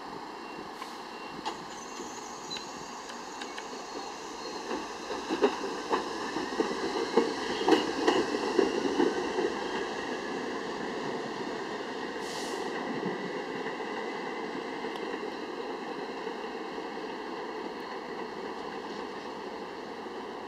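Kawasaki R68A subway train pulling out of the station and accelerating away, with a whine that rises slowly in pitch over a steady rumble. A few seconds in, the wheels knock over the rail joints at the loudest point, then the running sound fades as the train recedes.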